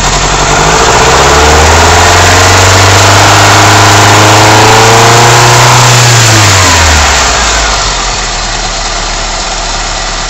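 Ford Escort's 1.6 CVH four-cylinder engine on twin Weber DCNF 40 carburettors revved from idle: it climbs over a second or so, holds high revs for about five seconds, then drops back to a steady idle about seven seconds in.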